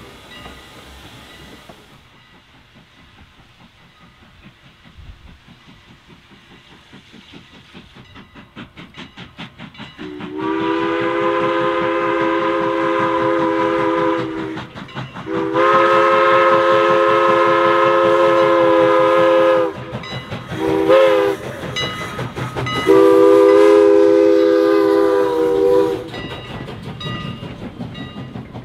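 Chime steam whistle of a steam locomotive blowing two long blasts, a short one and a final long one, the grade-crossing signal. Under the whistle, the rhythmic exhaust chuffs of two steam locomotives working a passenger train quicken as the train approaches.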